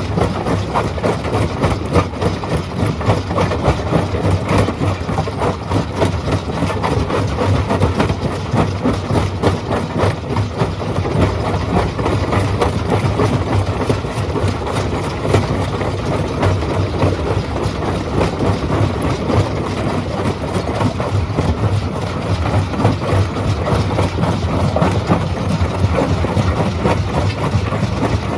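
Stone crushing machine running: a steady, loud low drone with a continuous clatter of knocks as rock is broken.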